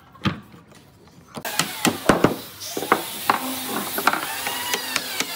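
A few light clicks of pine slats being fitted together by hand. About a second and a half in, louder background noise sets in with a run of sharp, irregular knocks of a hammer tapping on wood.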